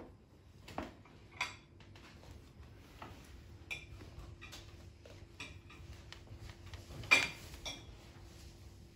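Scattered light clicks and clinks at an irregular pace. The more prominent ones come about a second in and again half a second later, and the loudest about seven seconds in. A faint steady hum runs underneath.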